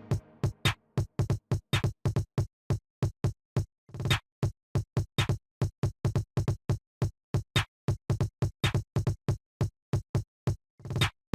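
Electronic background music: a fast drum-machine beat of short, clipped hits with gaps of silence between, about four a second.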